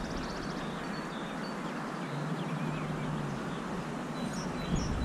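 River water rushing steadily, with small birds chirping over it and a few short high peeps near the end.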